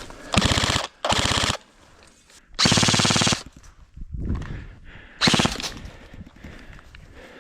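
Airsoft gun firing on full auto in four short bursts of rapid shots, the longest lasting nearly a second a little before the middle.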